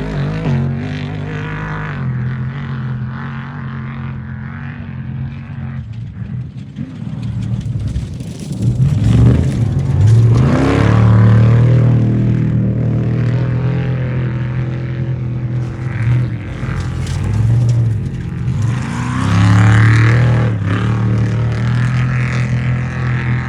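Off-road race truck engine running hard and revving, its pitch rising and falling as it accelerates and lets off. It surges louder about a third of the way in and again past the three-quarter mark.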